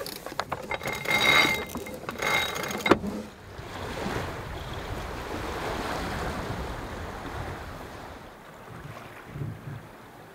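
A sailboat's deck winch clicking rapidly as a line is hauled around its drum by hand, with a couple of brief high squeaks, for the first three seconds. After that there is a steady rush of water and wind as the boat sails, easing off towards the end.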